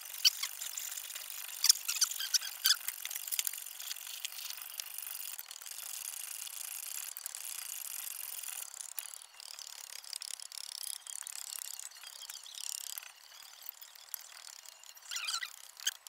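Hand hacksaw rasping through steel in squeaky strokes, with sharp metallic clicks, the loudest in the first few seconds and near the end.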